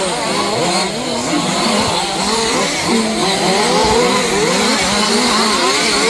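Several 1/5-scale 4WD off-road RC cars' small two-stroke petrol engines racing together, their overlapping notes constantly revving up and falling back as the cars accelerate and brake.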